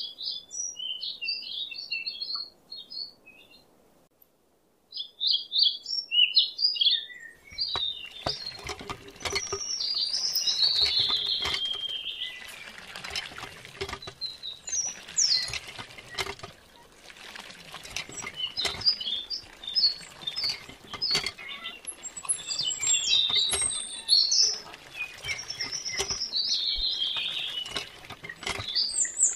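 Small birds chirping. From about seven seconds in, a miniature hand pump clatters as it is worked and water splashes from its spout into a small pond, in a fast run of clicks and splashing.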